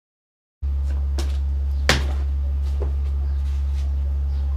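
Wooden fence posts knocking against each other as they are gathered up by hand: a few sharp wooden knocks, the loudest about two seconds in, over a steady low hum.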